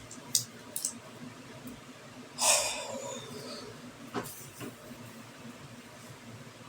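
A few light clicks of handling, and a short breathy sigh with a falling pitch about two and a half seconds in.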